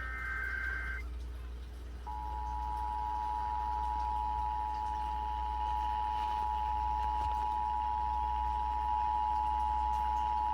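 Emergency Alert System broadcast: a warbling SAME header data burst of about a second, then about two seconds in the EAS two-tone attention signal, two steady tones sounding together without a break.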